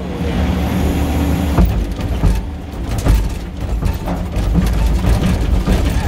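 Kubota SVL95 compact track loader's diesel engine running steadily under work, with several sharp knocks and clanks.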